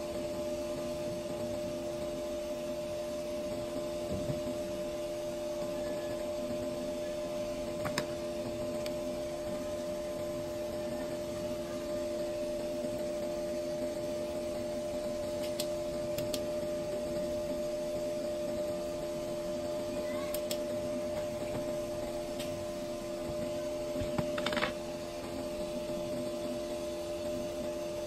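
Steady machine hum with two held tones over a low noise bed, from bench equipment running in a small workshop. A few light clicks and taps come through, one a little louder about three-quarters of the way in.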